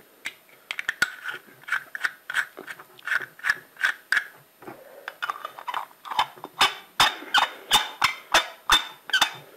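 Plastic clicking and ratcheting from a white plastic lamp holder being handled and screwed together around its wire. Irregular small clicks at first, then from about two-thirds of the way in a run of loud sharp clicks at about three a second.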